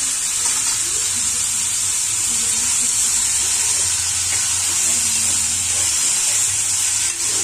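Chopped capsicum, onion and tomato sizzling steadily in hot oil in a kadai as a steel spoon stirs them.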